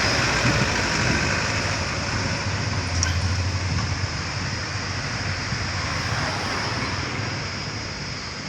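Heavy truck's diesel engine running hard under load, with road noise; it fades a little near the end.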